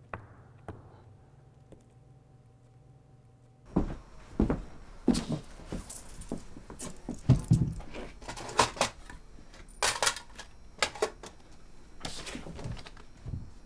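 Handling and unpacking of a bag on a bed. After a few quiet seconds come a run of thuds as it is dropped and handled, then rustling of cloth and paper and several metallic jingles as things are pulled out.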